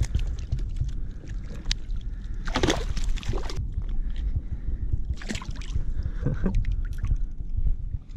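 Water sloshing and splashing at the side of a kayak, with wind rumbling on the action-camera microphone and a few short knocks and splashes as fish and fishing tackle are handled.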